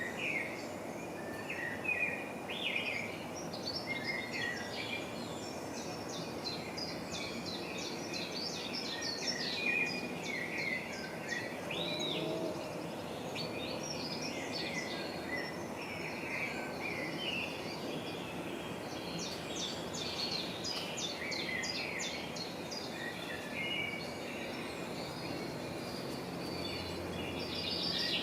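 Small birds chirping and trilling over and over, with many quick calls, over a steady background rush of noise.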